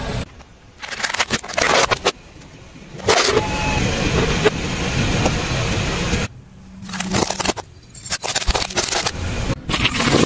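Car tyre rolling over and crushing plastic toys: cracking and crunching plastic in several separate spells, with short quiet gaps between them.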